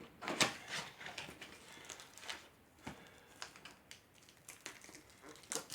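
Scattered light clicks and rustles at irregular intervals, from handling a new rubber inner tube and its packaging.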